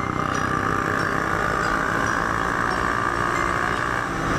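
Ride audio from a helmet-mounted camera on a Honda CBR250R at road speed: the single-cylinder engine running steadily under a heavy rush of wind noise.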